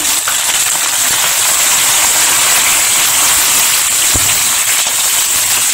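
Mustard seeds, dried red chillies and curry leaves sizzling in hot oil in a frying pan, a steady hiss: the tempering (tadka) stage of cooking.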